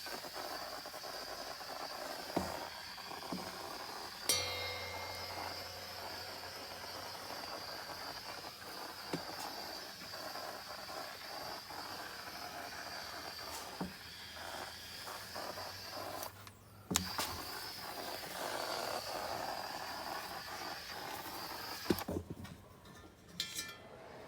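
Redline EZ50 powder coating gun spraying primer powder on compressed air: a steady hiss that stops briefly about 16 seconds in and cuts off near the end. A few clicks and knocks come from handling, and a low hum joins about four seconds in.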